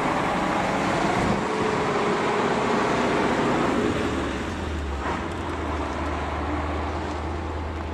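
Motor vehicle running: steady traffic-type engine noise, with a low steady hum setting in about four seconds in.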